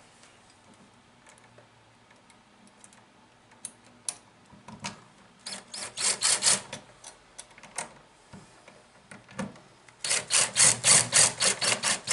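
Cordless impact driver running in short rattling bursts as it drives the mounting screws of a duplex receptacle into a plastic electrical box. The first bursts come about halfway through, and a longer, louder burst comes near the end as the second screw is run down.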